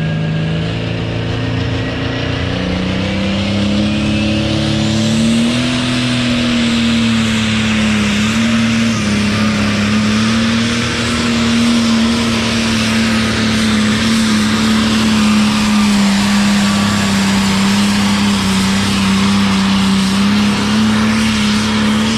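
Modified International Harvester 1066 pulling tractor's diesel engine at full throttle under heavy load as it drags the sled down the track. The engine note climbs over the first few seconds, then holds steady and gets a little louder as the tractor comes past.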